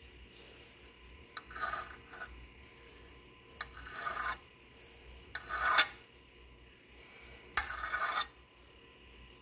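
Kitchen knife slicing through a hot dog and scraping down onto a cardboard surface: four cutting strokes a second or two apart, each a short rasp that opens with a light tap. The third stroke is the loudest.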